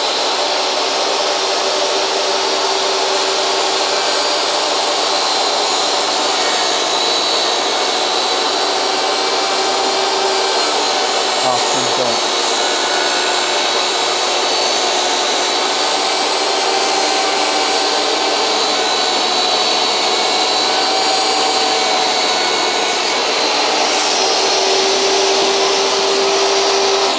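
DeWalt DWE7491RS 10-inch 15-amp jobsite table saw, fitted with a Diablo 50-tooth combination blade, running at full speed with a steady high whine. It rips a half-inch cedar board without bogging down.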